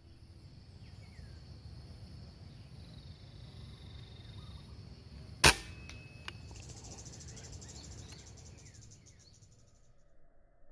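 A single sharp air-rifle shot about five and a half seconds in, followed by a fainter click under a second later. Insects buzz steadily in the background, with a few faint bird chirps.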